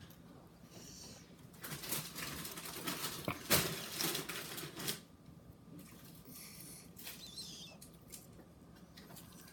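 Slime being squeezed and worked by hand, making wet crackling and popping clicks. It is busiest and loudest from about two to five seconds in, then quieter, with scattered squelches.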